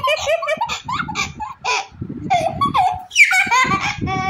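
A little girl laughing and giggling in a high voice, a string of short laughs with a quicker, pulsing laugh near the end.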